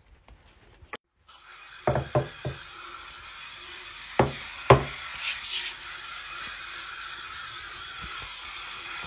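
Cleaning at a bathroom sink: after a moment of near silence come a few sharp knocks, in a cluster about two seconds in and again just after four seconds, over a steady rubbing hiss.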